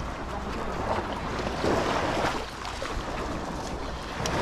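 Small waves washing onto a sandy shore, with wind rumbling on the microphone; the wash swells about two seconds in.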